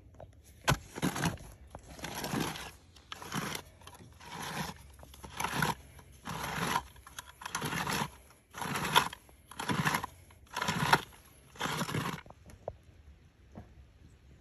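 Manual clamshell post-hole digger being driven into rocky, gravelly soil, each stroke a short crunching scrape of the blades through dirt and small stones. About a dozen strokes come roughly one a second and stop near the end.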